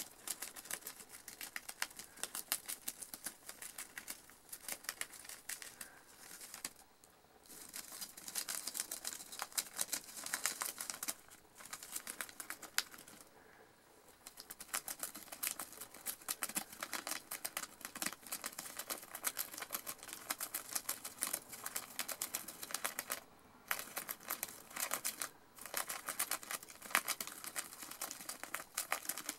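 A gerbil gnawing lined notebook paper with its front teeth: fast, crisp crunchy clicks of paper being bitten and torn, broken by a few brief pauses.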